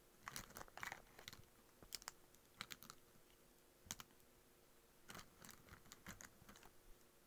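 Faint, irregular clusters of light clicks and taps.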